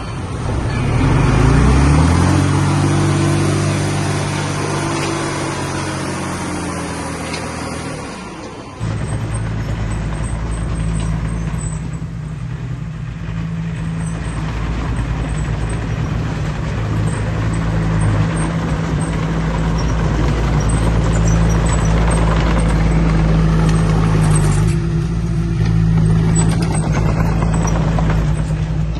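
Heavy diesel engine of earthmoving machinery running: it revs up about a second in, then after an abrupt change about nine seconds in it runs at a steady pitch with a low rumble.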